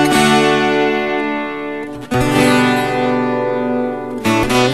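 Instrumental introduction of a Brazilian sertanejo ballad on strummed acoustic guitar. Chords are struck and left ringing, with a new chord about two seconds in and another near the end.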